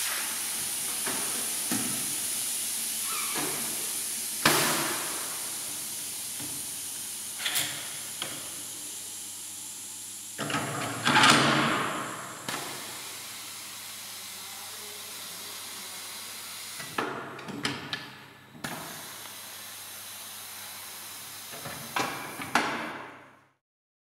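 A tyre changer's wheel being released and lifted off: a steady hiss that slowly fades, with scattered metal clunks and knocks. There is a louder rushing burst about eleven seconds in.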